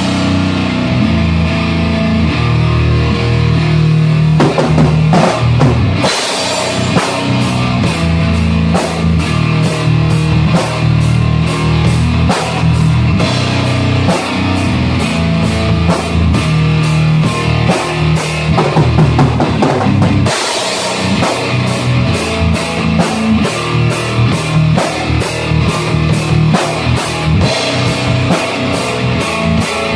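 A slow doom/sludge metal jam: a heavily distorted guitar holds low, sustained chords over a full drum kit. For the first few seconds the chords ring with little drumming; about six seconds in the drums come in with a big hit and a steady beat of cymbal strikes, which turns faster about twenty seconds in.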